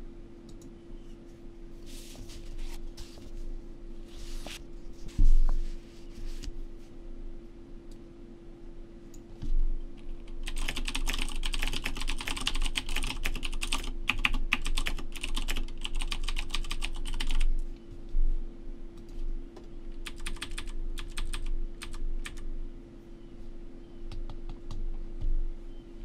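Typing on a computer keyboard over a steady hum. A few short runs of keystrokes are followed by a fast continuous run of about seven seconds, then more short runs. A single thump about five seconds in is the loudest sound.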